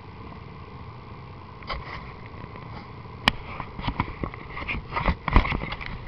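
Low steady rumble of idling motorcycle engines. From about two seconds in it is overlaid by a string of sharp knocks and rubbing from the camera being handled, the loudest knocks coming about a third of the way in and near the end.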